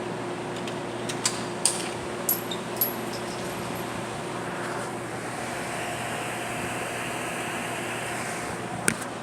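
Steady hum of ventilation fans, with a few sharp clicks and knocks: four in the first three seconds and one more near the end. A faint steady hiss joins in midway and fades out before the last click.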